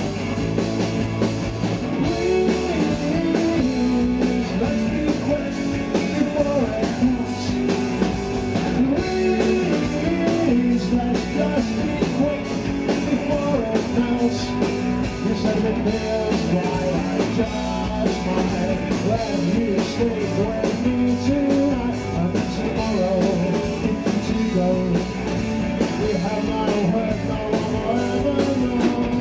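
Live rock band playing: electric guitar, bass guitar and drums, with a male voice singing at times.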